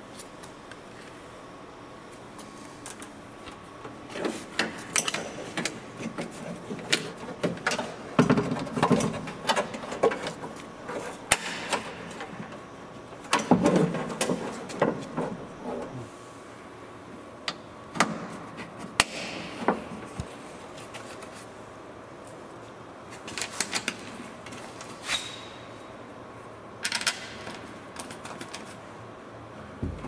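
Scattered clicks, taps and rattles of metal and plastic parts of an Acura RSX door latch and lock actuator assembly, with its linkage rods and plastic clips, being handled and fitted into the door shell. The clicks come in several short clusters.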